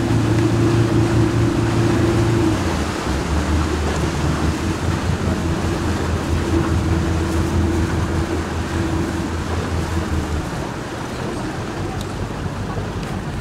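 A boat's engine running, with wind and water noise over it. Its pitch drops about two and a half seconds in, and it grows quieter near the end.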